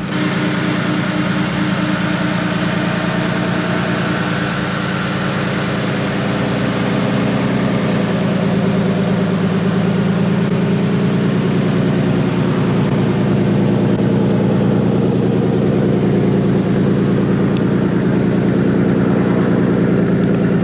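Turbocharged Nissan Silvia S15's engine idling steadily at a constant pitch, without revving.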